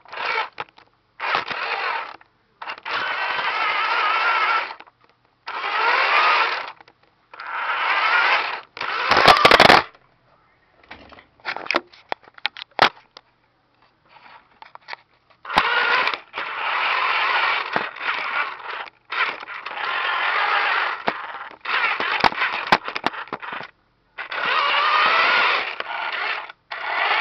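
Small electric motor and gears of a 1980s corded six-wheel toy RC truck whirring in stop-start bursts of one to three seconds. There is a sharp knock about nine seconds in, then a few seconds of scattered clicks and knocks before the motor runs again.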